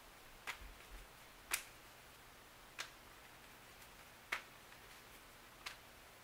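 Five faint, sharp clicks at uneven gaps of about a second or so, the second the loudest, over quiet room tone.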